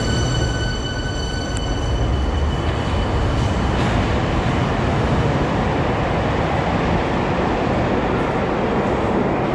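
Light-rail tram pulling away from an underground platform and running off into the tunnel: a steady rumble, with a high whine that fades out after about two seconds.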